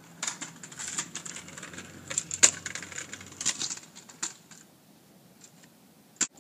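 Folding aluminium kick scooter's small hard wheels rattling and clattering over brick pavers, with the loudest sharp clack about two and a half seconds in as it comes down from a hop over a strip of wood; the rattle dies away about four and a half seconds in, and one more sharp click comes near the end.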